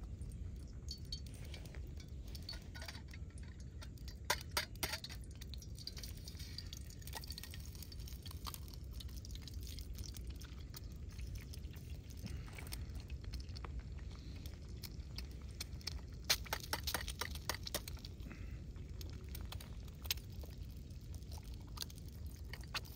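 Light clinks and taps of small camping cookware and utensils being handled, bunched around four to five seconds and sixteen to seventeen seconds in, with a single click near twenty seconds, over a steady low rumble.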